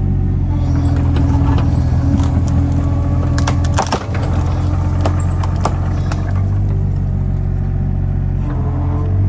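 The small Perkins diesel engine of a Kato HD35 mini excavator running steadily, with sharp cracks of wood snapping and splintering a few seconds in.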